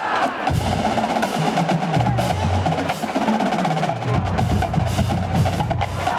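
Massed marching band drumlines playing a cadence: rapid clicking rim and snare strokes over low sustained notes.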